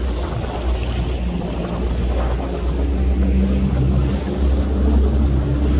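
Motorboats running at speed on open water: a steady low engine drone. A humming note grows stronger from about three seconds in as a boat passes.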